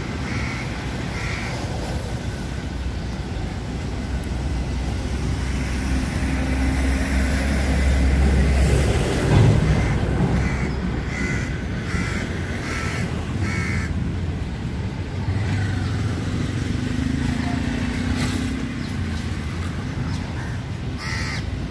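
Crows cawing in groups of short calls, over a steady low rumble that swells about eight to nine seconds in.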